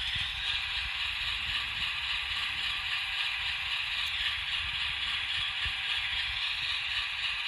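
N scale GE Dash 9 model locomotive with a LokSound sound decoder, slowed for braking: a steady hiss of brake sound from its small onboard speaker, over a low clatter from the running mechanism and wheels on the track.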